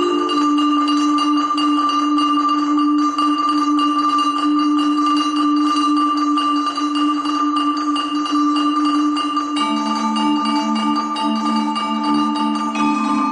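Marimba quartet playing long held chords, sustained by rolling the mallets on the wooden bars. The harmony shifts about ten seconds in and again near the end.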